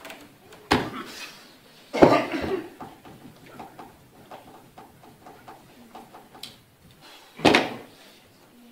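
Three coughs: a short one about a second in, a loud one about two seconds in, and another near the end. Faint small knocks and rustles come between them.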